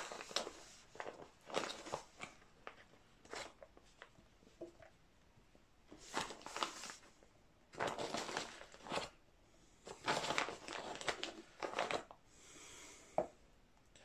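Handfuls of red casting sand crumbled and dropped into a moulding flask and pressed down by hand, giving irregular crunching, rustling bursts that come thicker in the second half.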